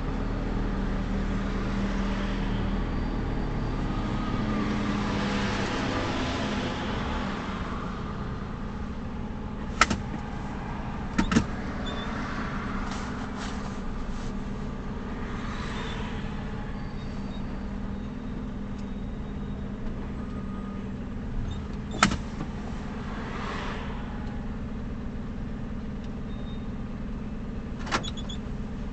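Steady road and engine noise of a moving car, heard inside the cabin, with a low hum and a few sharp clicks or knocks scattered through.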